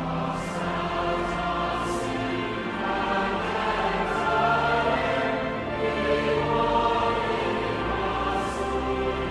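A choir singing, the voices holding long notes.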